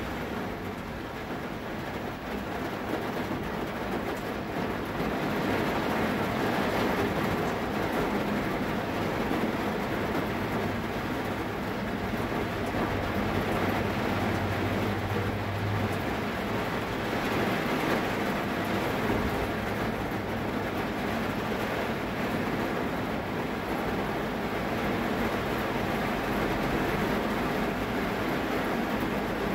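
Heavy rain falling steadily on a vehicle, heard from inside the cabin as an even, continuous rush.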